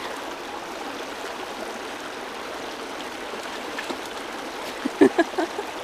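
Small rocky creek running steadily over stones, with a few short, sharp splashes or knocks about five seconds in.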